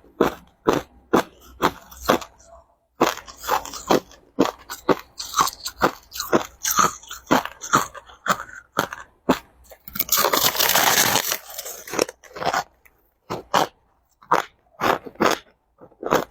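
A person chewing crushed ice: a long run of sharp crunches, about two or three a second, with a denser stretch of crackling lasting about two seconds just past the middle.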